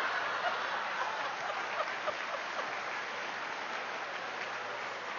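Audience applauding, steady clapping from a room full of seated people.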